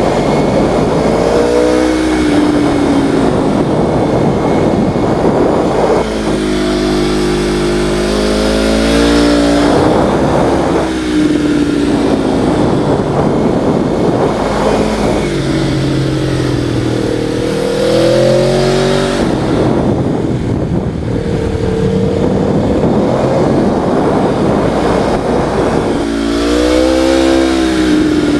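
Motor vehicle engines revving, their pitch rising and falling several times over a steady low rumble and wind-like hiss.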